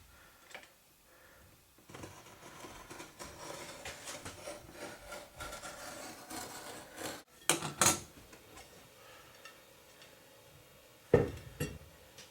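Hand-working noise on a prop shield being built: about five seconds of steady scraping or rubbing, then two sharp clacks, and a louder knock near the end.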